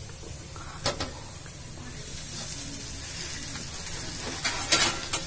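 Handfuls of fresh leafy greens going into a steel pan of fried onions, with a steady low sizzle. A single sharp clink about a second in and a few louder metal clinks near the end, as of a spatula against the steel pan.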